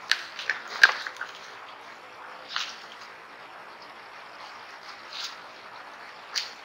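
Collared peccaries feeding in dry leaf litter: sharp crunching cracks as they bite into food on the ground, a quick cluster in the first second with the loudest crack just under a second in, then single cracks every couple of seconds.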